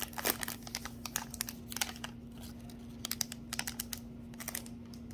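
Foil trading-card pack crinkling as it is peeled open and the cards are slid out, a scattered run of short sharp crackles and clicks.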